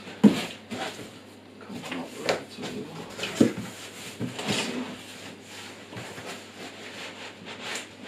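A cardboard box and its foam packing blocks being handled: rubbing and scraping of cardboard flaps against foam, with two sharp knocks, one right at the start and one about three and a half seconds in.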